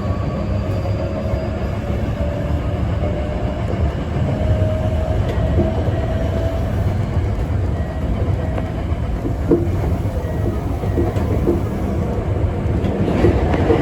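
Hankyu Kyoto Line electric train running along the track: a steady rumble of wheels on rail with a faint motor whine that rises slightly, and a few clicks over rail joints past the middle.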